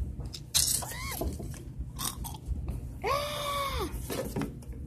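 A child's high-pitched wordless vocal sounds, a short rising-then-falling squeak about a second in and a longer held 'ooh' about three seconds in, amid rustling from handling the phone.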